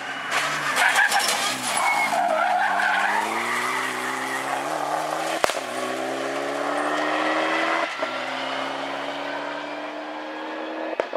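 Rally car sliding through a corner with tyre squeal, then accelerating hard. The engine's pitch climbs steadily and drops at two quick upshifts, the first marked by a sharp crack.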